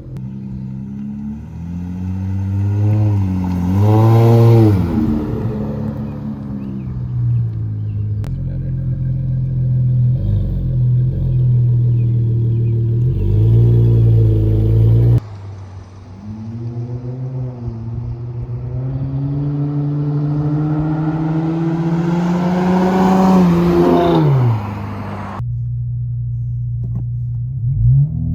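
2011 Dodge Charger 3.6L Pentastar V6 running through a Flowmaster Super 44 muffler with the rear mufflers deleted, in several clips joined by abrupt cuts. The engine revs up and back down, idles with a couple of short blips, then climbs steadily in revs for several seconds before dropping back sharply near the end.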